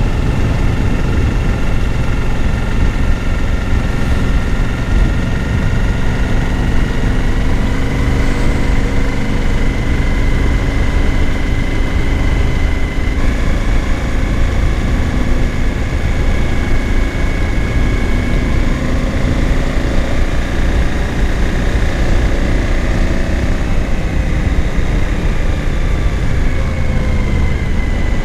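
Suzuki V-Strom 1000 V-twin engine running at road speed, with wind rushing over the helmet microphone. The engine note climbs gently through the first half and eases off towards the end.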